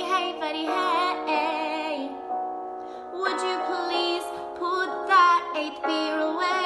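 A woman singing a pop tune over a backing track of steady keyboard chords, with a short break in the voice about halfway through.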